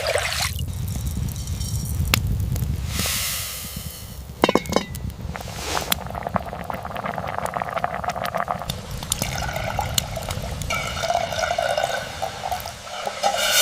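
Liquid pouring and splashing into a vessel, with scattered clicks, over a steady low rumble.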